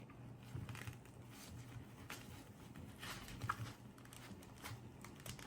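Faint rustling and scattered light clicks of hands handling a small medical pouch and the gloves being packed into it, over a low steady hum.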